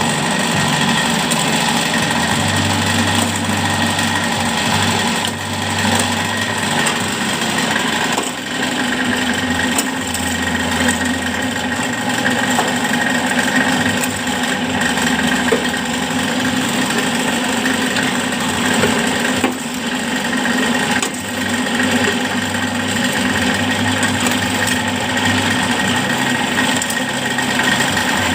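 Concrete-block (batako) press machine running steadily, its motor and vibration making a constant mechanical noise. A low hum cuts in and out every few seconds.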